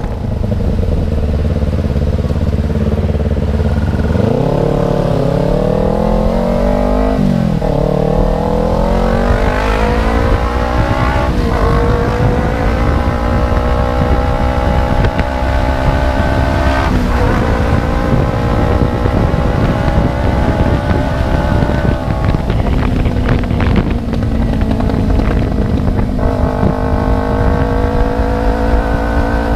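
Kawasaki Ninja 250Fi parallel-twin engine running with no exhaust fitted, open and raw, while riding. There is a short rev up and back down first. Then the pitch climbs repeatedly under acceleration, breaking sharply at several gear changes.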